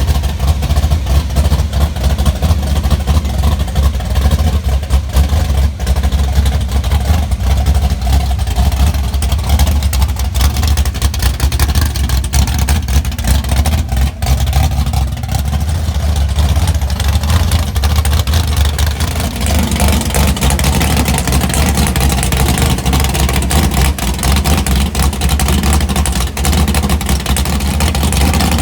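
A car engine running loud and steady with a deep low rumble, growing fuller and louder about twenty seconds in.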